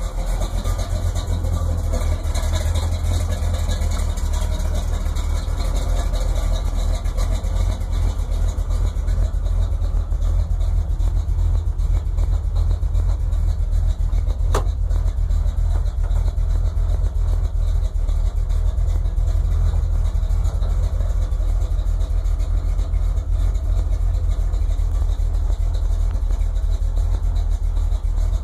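1963 Chevrolet C10 pickup's engine idling steadily, with one sharp click about halfway through.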